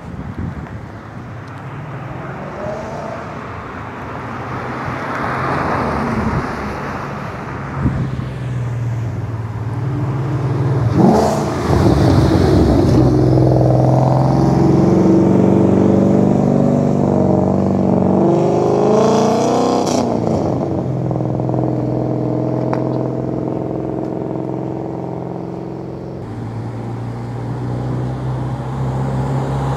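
Cars pulling out of a parking lot one after another, their engines accelerating past. The engine sound builds about a third of the way in and is loudest for several seconds with rising and falling revs as a Ford Mustang pulls away, then eases off, and another car's engine builds near the end.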